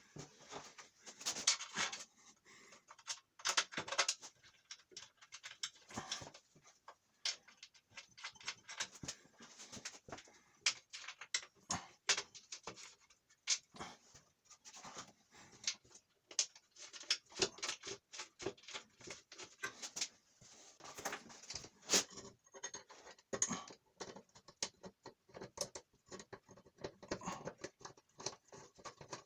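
Many irregular light clicks and knocks, as of parts and tools being handled at a workbench. There is no steady motor hum, so no grinder is running.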